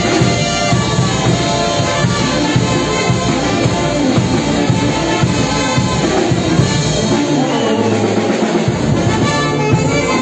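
Live band playing Negritos dance music: horns carry the melody over drums. The low drumming drops out for about a second late on.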